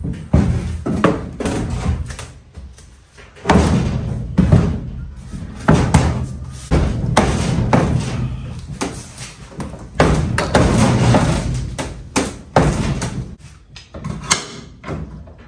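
Plywood transom board being shoved and knocked into place against an aluminum jon boat's stern: repeated irregular thuds and knocks, with wood scraping on aluminum between them.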